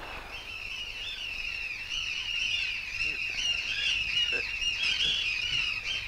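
Many seagulls crying at once: a dense chorus of short, overlapping squealing calls that grows louder over the first couple of seconds.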